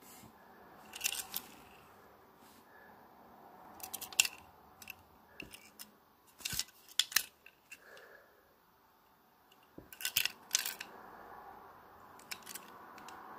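Fingers handling and turning over a small die-cast metal toy car close to the microphone: soft rubbing broken by a few short clusters of clicks and taps.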